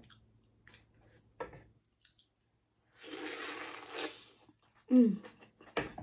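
A wet slurp lasting about a second, typical of sucking seafood-boil sauce and juice from shellfish while eating, after a few small mouth and food clicks. A short hummed voice sound follows near the end.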